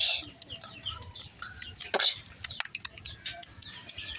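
Small birds chirping with rapid short calls, with a louder short noise at the start and a sharp click about two seconds in.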